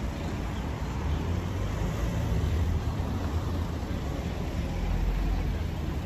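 Road traffic going by on a street, a steady low rumble under general outdoor street noise.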